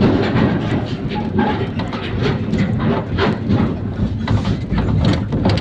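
IVECO Daily bus on the move: a quick, irregular clatter of rattles and knocks from the body over a steady low rumble of engine and tyres, as on a rough road.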